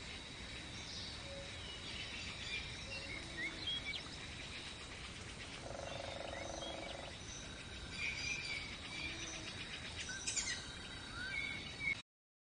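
Natural ambience of birds chirping over a steady background hiss and a thin, high, steady whine, with a buzzing trill for about a second and a half a little after the middle. It cuts off suddenly near the end.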